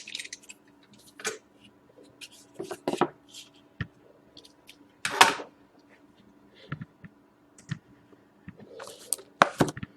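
Sealed box of hockey cards being handled and opened: scattered rustles, scrapes and clicks of wrapping and cardboard, the loudest about five seconds in, over a faint steady hum.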